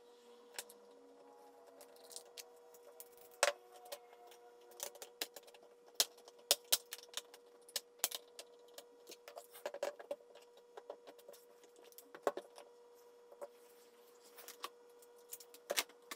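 Irregular sharp clicks and taps of a small screwdriver working screws on the underside of a laptop and of its plastic and metal parts being handled, over a faint steady hum-like tone.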